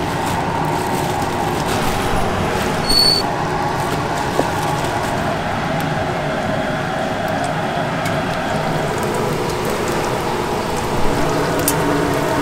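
Steady busy-market background noise with a short, high electronic beep about three seconds in.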